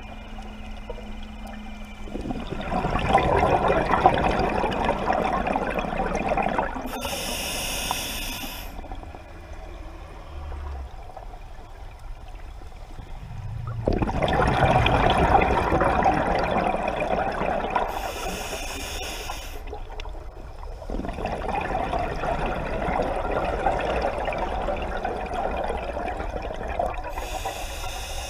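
Scuba diver breathing through a regulator underwater: three rushes of exhaled bubbles, each with a short high hiss of air from the regulator as a breath is drawn, a few seconds apart.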